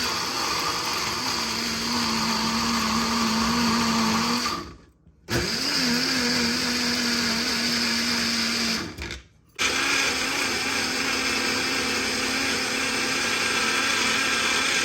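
Electric blender running, blending the cooked tomato, garlic and chilli masala with water into a sauce base: a steady motor whine that stops twice for a moment, rising in pitch each time it starts again.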